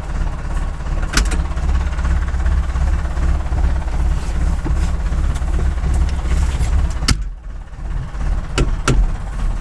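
IHC 745 tractor's diesel engine idling steadily, heard from inside the cab. About seven seconds in the cab door shuts with a sharp knock, and two more clicks follow near the end.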